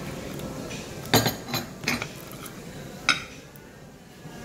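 Metal cutlery clinking and scraping against a plate as a fork and knife cut into grilled prawns: a cluster of sharp clinks a little over a second in, a few more just after, and a single clink about three seconds in.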